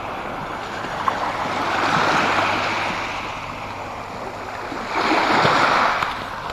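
Small waves washing onto a pebble lakeshore. The wash swells twice, about two seconds in and again around five seconds in.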